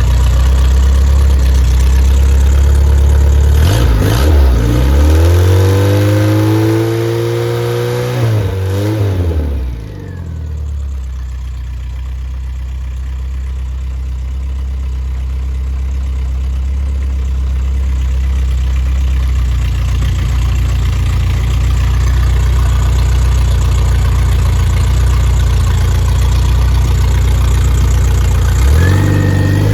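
Freshly rebuilt Triumph Spitfire 1500 four-cylinder engine, a performance build with flat-top pistons, a 270 cam and a shaved head, running on test. It is revved up about four seconds in, held for a few seconds, drops back to a steady idle, and is revved again near the end.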